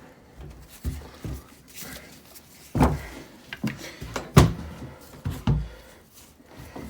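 Hard knocks and clicks from handling and fitting the parts of a Makita multi tool during reassembly, about five sharp knocks spread irregularly, the loudest near the middle.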